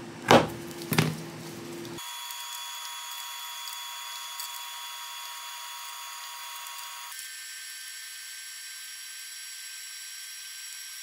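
Two knife strokes cut through a log of sablé cookie dough onto a baking mat, about a third of a second and a second in. After that comes a steady machine whine of several held high tones, changing about seven seconds in.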